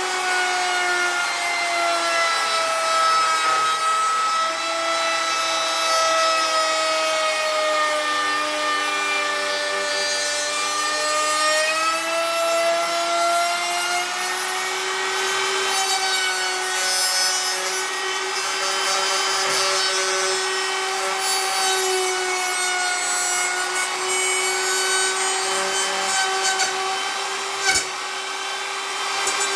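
Electric power tool running with a steady whine over a rough rubbing, grinding noise. The whine sags in pitch for a few seconds under load and then recovers. There is one sharp click near the end.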